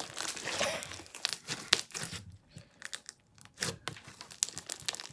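Slime being squeezed and pulled apart by hand, giving irregular sticky crackles and clicks, with a brief lull in the middle.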